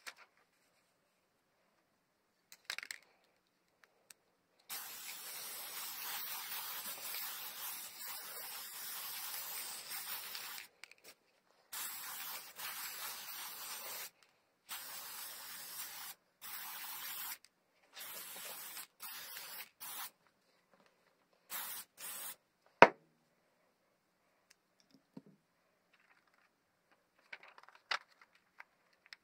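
Aerosol can of spray adhesive hissing: one long spray of about six seconds, then a string of shorter bursts. A sharp knock follows, the loudest sound, about a second after the spraying stops.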